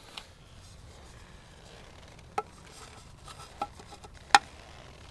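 A few light clicks and taps of parts being handled as the chrome air cleaner cover is fitted over a K&N air filter on a motorcycle. One sharper click, about four seconds in, is the loudest.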